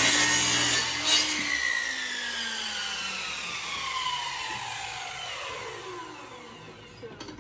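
Compound miter saw cutting through a wooden board, then the motor and blade winding down after the trigger is released, the whine falling steadily in pitch over about six seconds.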